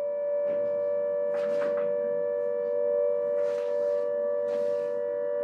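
A steady held tone of two close pitches with overtones, unchanging in pitch and loudness, with a few faint soft rustles over it.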